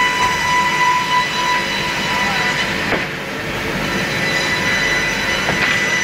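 Woodworking saw machine running steadily, a high-pitched whine over mechanical noise, with a brief dip in level about halfway through.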